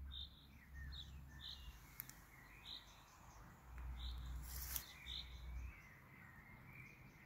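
Small birds chirping, with short high notes repeated about once a second and a few fainter warbling notes under them. A low rumble comes and goes several times.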